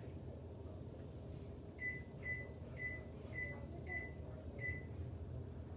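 Microwave oven keypad beeping six times, short even beeps at one pitch about half a second apart, as a 3-minute cooking time is keyed in.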